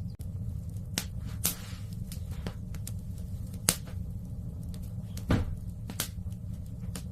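Wood fire in a fireplace crackling: irregular sharp pops, about six of them, over a steady low rumble.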